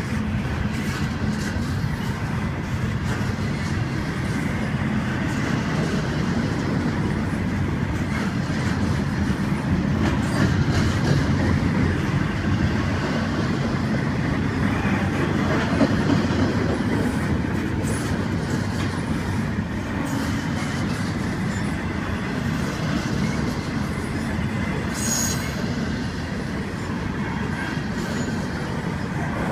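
Double-stack intermodal train's loaded well cars rolling steadily past: a continuous rumble and clatter of steel wheels on rail, with a brief high-pitched squeal about 25 seconds in.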